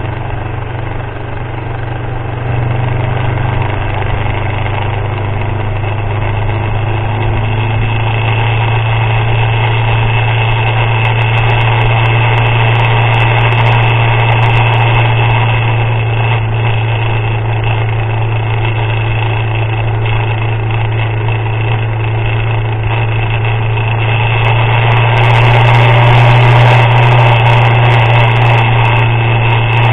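Motorcycle engine running steadily while riding, a loud, deep, even hum over road and wind noise, growing louder near the end.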